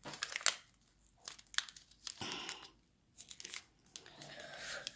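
A sheet of origami paper rustling and crackling as it is folded and pressed down, in several short spells with quiet gaps between them.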